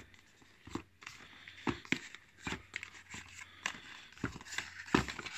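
Irregular clicks, scrapes and rustles of a tight-fitting cardboard lid being worked loose from a box mod's retail box by hand.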